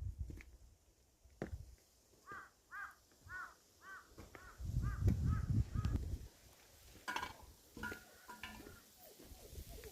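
A bird giving a run of about eight short, arched calls in quick succession. A low rumbling noise is loudest in the middle.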